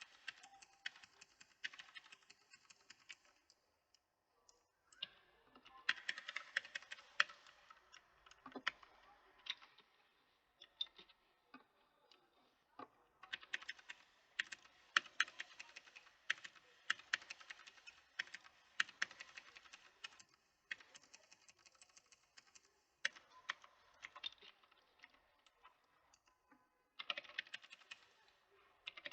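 Typing on a mechanical keyboard: fast runs of sharp key clicks in bursts of a few seconds, broken by brief pauses.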